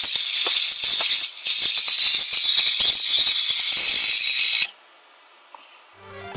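Noisy computer hardware running with a steady high-pitched whine and a fast irregular rattle, which cuts off suddenly about three-quarters of the way in. Music starts near the end.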